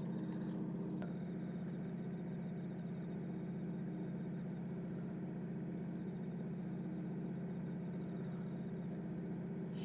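A fishing boat's engine idling, a steady low drone that does not change.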